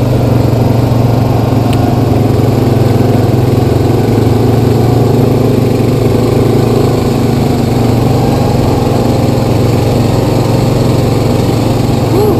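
Honda Rancher 420 ATV's single-cylinder engine running steadily while the quad rides along a dirt trail, with no revving or change in pace.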